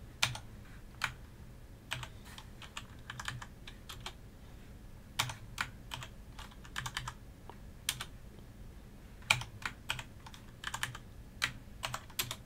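Computer keyboard keystrokes while pasting and editing lines of a config file: irregular sharp key clicks in short clusters of two to five, with pauses of a second or more between them.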